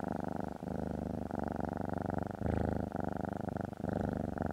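A cat purring, a fast pulsing rumble that breaks into stretches of about a second.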